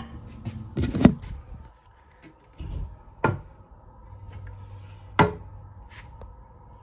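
A few separate sharp knocks and clunks of hard objects being handled: a cluster about a second in, another a little past three seconds, and one about five seconds in.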